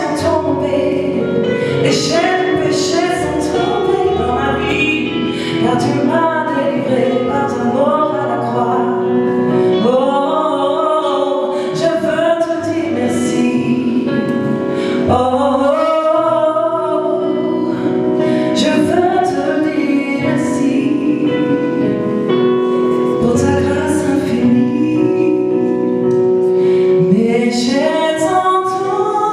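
A woman singing a gospel solo with long, sliding vocal runs over sustained musical accompaniment.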